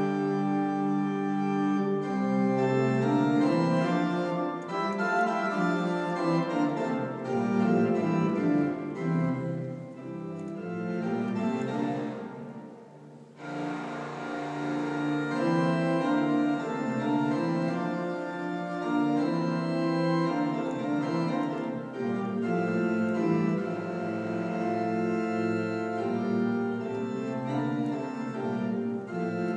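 Church organ playing sustained, shifting chords, breaking off for about a second near the middle before resuming. It is played to demonstrate a fault in the instrument.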